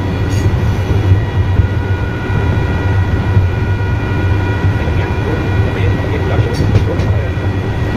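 Electric commuter train running along the track, heard from inside the driving cab: a steady low rumble with a steady high whine over it and a couple of faint clicks near the end.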